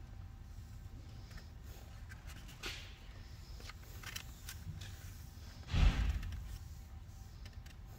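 Quiet hall room tone: a low steady hum with a few faint clicks. About six seconds in comes one brief thump with a short rush of noise, the loudest sound.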